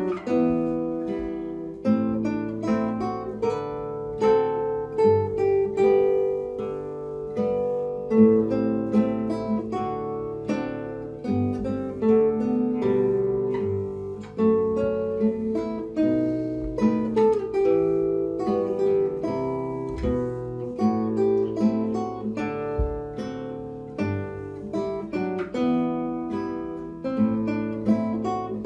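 Two nylon-string classical guitars playing a duet, the strings plucked with the fingers: a melody over ringing bass notes and chords.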